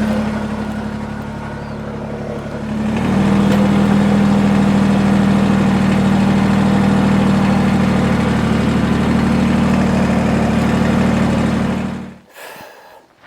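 Tractor engine running, first at a low idle and then raised to a higher, steady speed about three seconds in; it stops abruptly near the end.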